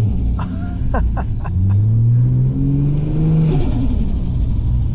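Ford FG Falcon XR6 Turbo's 4.0-litre turbocharged straight-six accelerating hard, heard from inside the cabin. Its note and a thin turbo whistle climb together from about a second and a half in. At about three and a half seconds the throttle closes with a short rush of air, and the revs and the whistle fall away.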